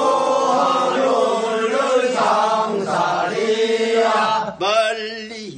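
Group of men singing the refrain of a Korean rice-paddy weeding song in unison, answering the lead singer in call-and-response. About four and a half seconds in, a single male voice takes up the next line.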